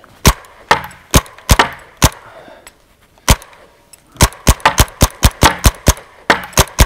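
Paintball marker firing: five shots in the first two seconds, a single shot a little past the middle, then a fast string of about four shots a second starting just over four seconds in.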